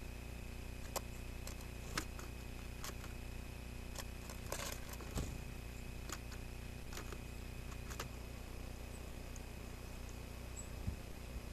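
Steady electronic hum and hiss of the camera's recording with a faint high whine, and a scatter of light sharp clicks, small birds tapping and pecking at the wooden feeder tray.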